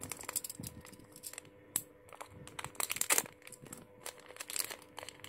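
Small electronics packaging crinkling and crackling in the hands as it is opened, in a quick irregular run of sharp crackles.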